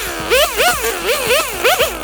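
Chainsaw revved in quick bursts, its pitch swooping up and falling back about three times a second.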